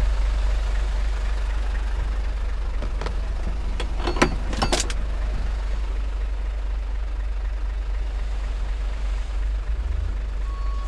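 Diesel dump truck engine idling with a steady low rumble. A quick cluster of sharp knocks comes about four seconds in, and a reversing beeper starts near the end.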